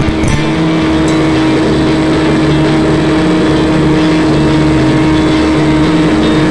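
Easy Star's electric motor and propeller running steadily at a constant pitch, heard through the plane's onboard FPV audio, with a hiss behind it.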